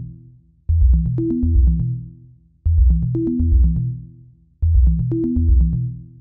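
Electronic background music: a short drum-machine and bass loop that repeats about every two seconds, each phrase fading out before the next one starts.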